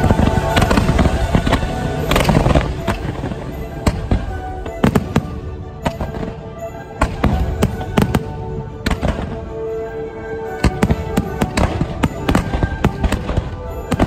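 Fireworks display: a dense salvo of launches and bursts, dozens of sharp bangs in quick succession, heaviest in the first few seconds, over music playing along with the show.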